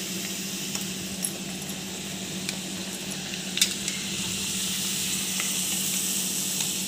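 Rice-flour supulu fritters sizzling steadily as they deep-fry in oil in an iron kadai over a low gas flame, with a steady low hum underneath and a few light clicks.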